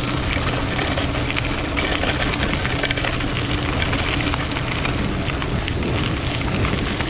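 29-inch KTM mountain bike's tyres rolling steadily over a loose gravel road: a continuous crunching crackle of stones under the tyres, with the bike rattling over the rough surface.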